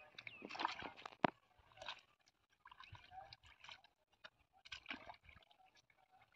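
Hands scooping and squelching through wet mud and shallow water in a mud hole, in irregular bursts of sloshing with short pauses between, and one sharp click a little over a second in.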